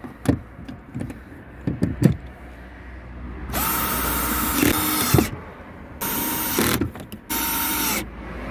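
A small electric motor whirring with a steady whine in three bursts, the first about a second and a half long and the next two shorter, after a few clicks and knocks.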